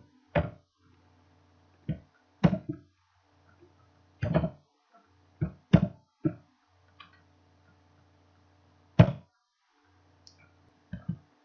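Computer keyboard keystrokes: about ten separate sharp key clicks at irregular intervals as a command is typed and entered, over a faint low hum.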